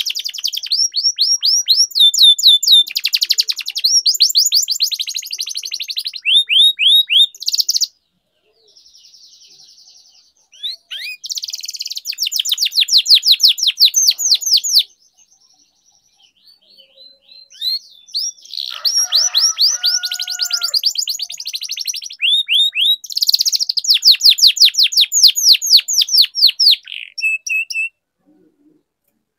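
Domestic canary singing long, unbroken phrases of rapid high trills and rolls. There are short breaks about eight and fifteen seconds in, and the song stops shortly before the end.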